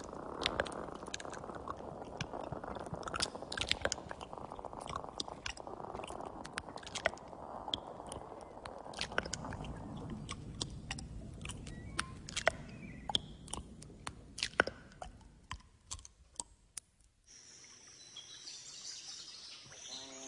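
A baobab trunk heard through a stethoscope fitted with a microphone: a dense crackling of small clicks over a low rushing, which is taken to be water flowing inside the tree. About three-quarters of the way in it cuts off to quieter outdoor ambience with a steady high buzz.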